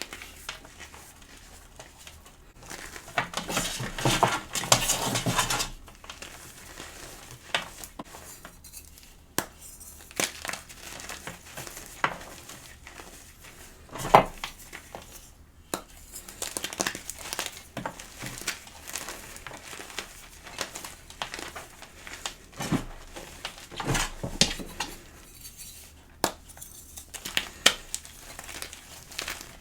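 Gym chalk being crushed and crumbled, with irregular crunching and crackling. There is a long dense crunch about three to six seconds in and sharp single snaps about halfway through and again later.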